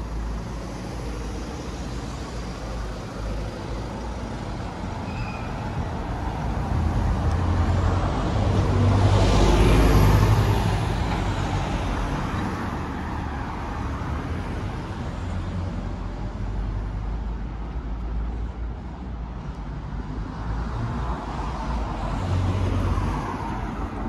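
Street traffic: a steady run of passing cars with a low rumble. One vehicle passes close, building up, loudest about ten seconds in, then fading away. Another smaller pass comes near the end.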